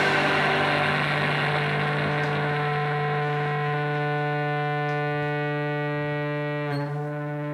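A held, droning chord from the band's amplified instruments ringing on after the song's last hits: a steady hum with many overtones that slowly fades. It wavers briefly near the end.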